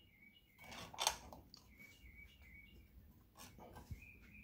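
Faint bird chirping in the background: short high notes in small runs of a few at a time. A brief breathy rustle comes about a second in.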